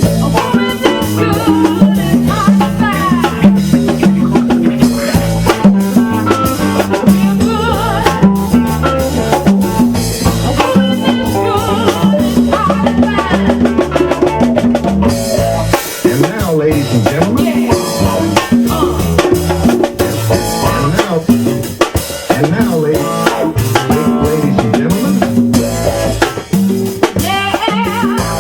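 A band playing a song: a busy drum kit over a stepping bass line, with guitar.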